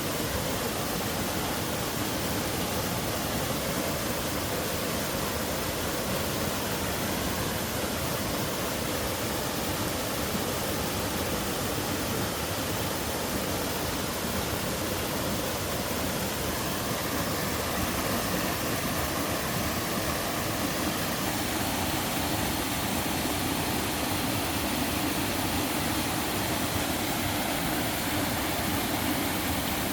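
Twin waterfall pouring steadily: a constant, even rush of falling water with no breaks.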